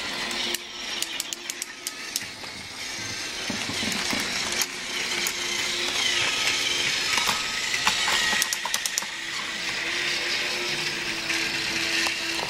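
Battery-powered motorized toy trains running on plastic track: a steady whirring hum of small geared motors with rattling wheels. Two clusters of sharp plastic clicks come about a second in and again around eight seconds in.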